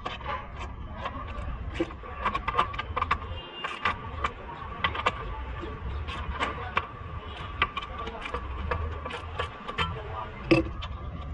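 Hand tools working a suspension bolt: a socket ratchet and wrench give irregular metallic clicks and clinks, the sharpest about ten seconds in, over a steady hum and a faint steady high tone.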